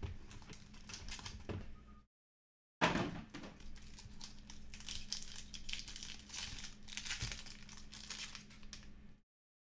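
Plastic wrapping of a trading card pack crinkling and crackling as it is handled and opened by hand. The sound drops out to dead silence twice, briefly about two seconds in and again just before the end.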